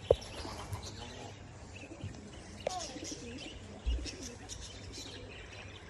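Racing pigeons cooing, with small birds chirping over the top and a brief sharp sound right at the start.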